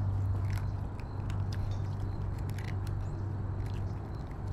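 A plastic spoon tapping and scraping at a balut egg's shell, a scatter of small irregular clicks, over a steady low hum.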